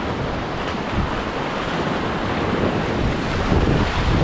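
Sea surf washing steadily, with wind buffeting the microphone in low rumbling gusts that get stronger near the end.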